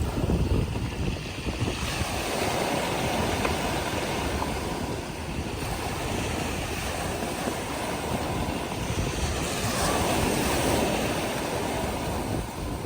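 Black Sea waves breaking and washing up the beach in a steady rush of surf, swelling twice as waves come in. Wind buffets the microphone.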